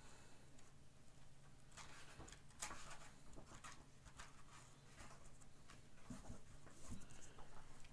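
Faint handling sounds, scattered light clicks and short rustles, over a low steady hum.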